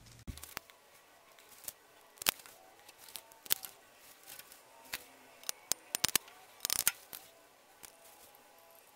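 Faint, scattered small clicks and snips from hands working thin sensor wires and their terminals, with a few in quick succession about six to seven seconds in.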